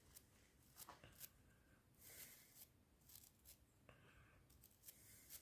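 Faint scrubbing in short strokes with a few light clicks: a small brush worked over the carbon-fouled parts of a stripped-down spark plug.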